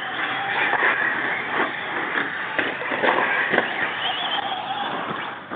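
Radio-controlled 4x4 short-course trucks racing, their motors whining and rising and falling in pitch as they accelerate and slow. Several sharp knocks break in along the way.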